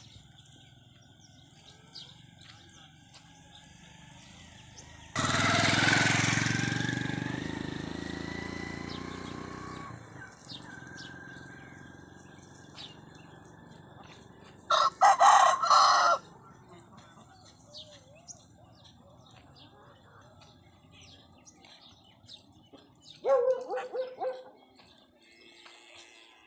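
Aseel rooster crowing once, a long drawn-out crow of about five seconds that starts about five seconds in and slowly fades. Around the middle comes a short burst of loud, rapid sounds, and near the end a brief call.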